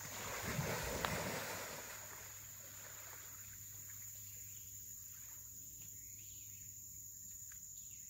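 Large alligator surging away through flooded creek water: a brief rush of splashing in the first two seconds. Insects trill steadily at a high pitch throughout.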